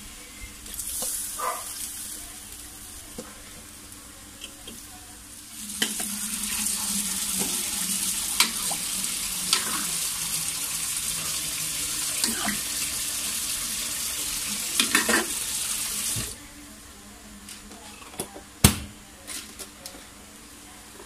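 Water running from a tap: a steady rushing hiss that starts abruptly about six seconds in and cuts off about ten seconds later. A utensil clinks against a metal wok several times, with one sharp knock near the end.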